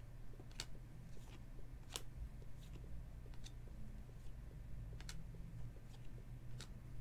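Topps Chrome Sapphire baseball cards flicked one at a time through a stack held in the hands: soft paper clicks and swishes, roughly one a second, over a low steady hum.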